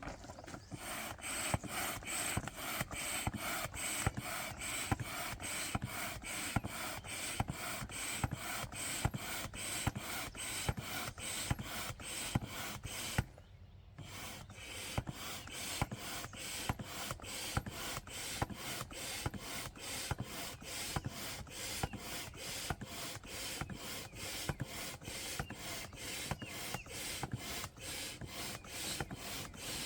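Manual air pump inflating an inflatable boat, a rhythmic rasping stroke repeated two to three times a second, with a short pause a little before halfway.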